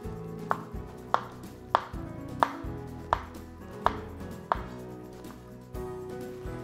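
Kitchen knife slicing through a banana and knocking on a wooden cutting board: seven even chops, about one every two-thirds of a second, stopping about two-thirds of the way through.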